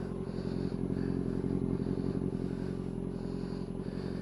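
Kawasaki ZX-6R's inline-four engine idling steadily, with the soft swish of a microfiber towel wiping the bodywork in short repeated strokes.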